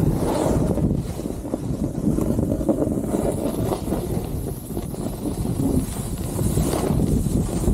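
Wind buffeting the camera's microphone on a fast ski-bike descent: a steady, dense low rumble that swells twice, near the start and near the end.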